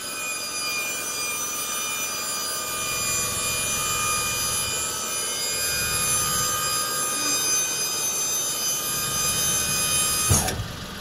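Dump-bed hydraulic pump whining steadily as the ram tips the bed up. It winds up at the start and winds down with a falling pitch about ten seconds in, when it stops.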